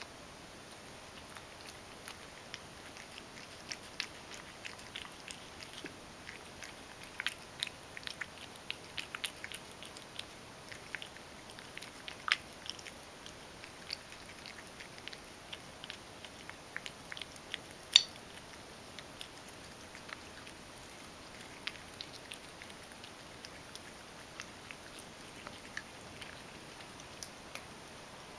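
Ragdoll cat chewing soft, moistened crushed kibble from a stainless steel bowl: scattered soft clicks and smacks of eating, busiest in the first half, with one sharper click about eighteen seconds in.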